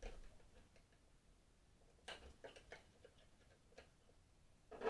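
Faint metal clicks of a screwdriver working a C-clip off the end of a garden tractor's front axle: a few scattered ticks, with a louder one near the end.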